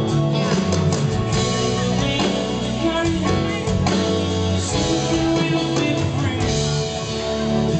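Live soft-rock band music, with an electric guitar played over the band and some singing.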